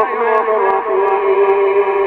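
An imam's voice chanting the prayer recitation, heard through a loudspeaker. A short ornamented turn opens into one long held note.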